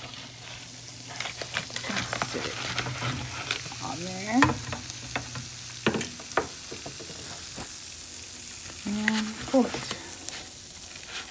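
Hot nonstick skillet sizzling steadily with melted cheese fat, with a few light clicks and knocks of handling.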